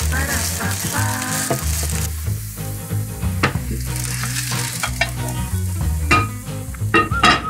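Grated potato frying in butter in a nonstick pan, sizzling. In the second half come a few sharp metallic knocks and clinks as a steel lid is set against the pan to turn the potato cake over.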